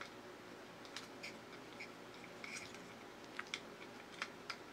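Faint, scattered small clicks and taps of small 3D-printed plastic parts being handled and fitted together by hand.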